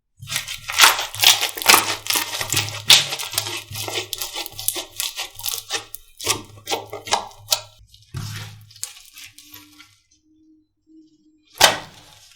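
Slime being squeezed and pressed by hand, giving off rapid crackling and popping that thins out about nine seconds in, then one sharp crackle near the end.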